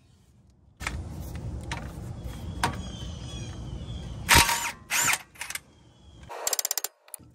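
A cordless impact wrench on a truck's upper ball joint nut: after a few seconds of tool-handling clatter it fires in short loud bursts, then hammers in a rapid, even rattle for about half a second near the end.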